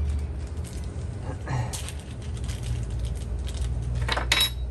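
Small metal hardware clinking and rattling as bolts, washers and Z brackets are handled and fitted to a solar panel's metal frame, with louder clatters about a second and a half in and again near the end, over a steady low hum.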